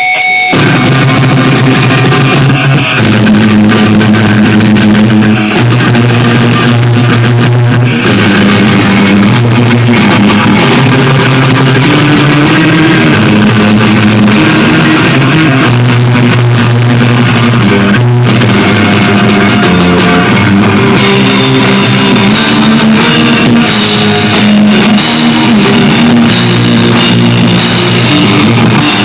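Live heavy rock band playing loud: distorted electric guitars, bass and a drum kit, with the full band coming in about half a second in after a thinner guitar passage.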